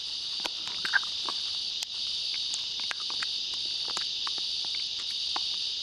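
Steady, high-pitched chirring of insects, with scattered faint clicks over it.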